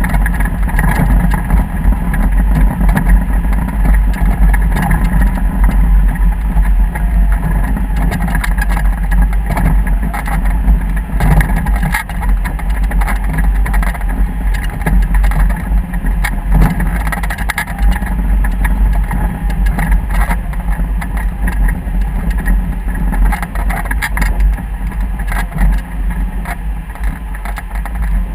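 A motor vehicle's engine running steadily while under way, with heavy wind rumbling on the microphone.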